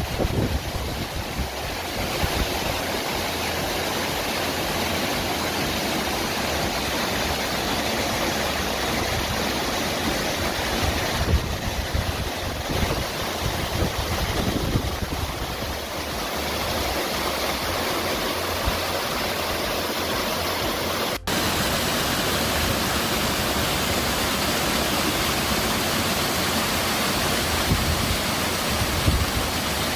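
Crowden Clough waterfall: falling water making a steady rush. The sound drops out for an instant about two-thirds of the way through.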